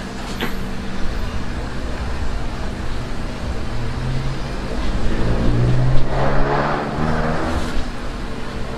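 Steady engine hum that swells louder around the middle and then eases off. A light knock of paper stacks being handled comes near the start.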